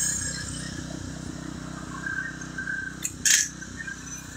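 Pressure washer engine running steadily with no water spraying, with one short hiss about three seconds in.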